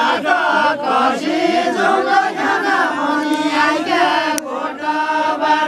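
A group of men singing a Deuda folk song of far-western Nepal together in a chant-like unison, with long held notes that waver and bend in pitch.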